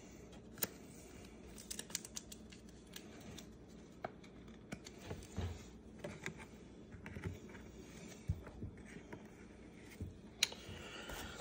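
Trading cards in rigid plastic top-loaders being handled and set down on a table: scattered light clicks and taps with soft sliding between them, the sharpest click near the end.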